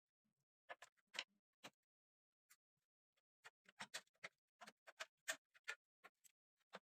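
A string of irregular sharp clicks and taps, about two dozen, spaced unevenly with short gaps between small clusters.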